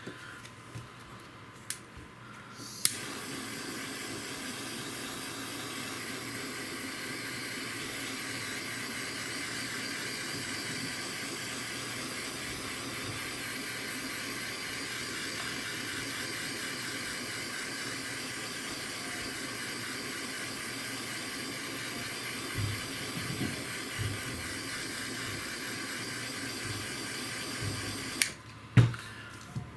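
A heat gun switches on with a click about three seconds in and blows a steady hiss for about 25 seconds while it shrinks a heat-shrink sleeve over a soldered cord joint. It cuts off near the end, amid a few knocks from handling.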